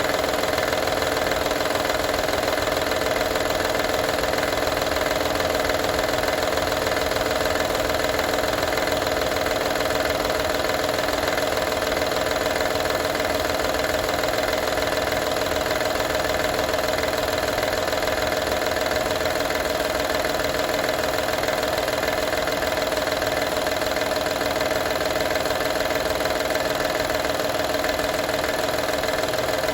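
2012 Honda Odyssey running at a steady idle with a continuous fast rattle of unknown cause.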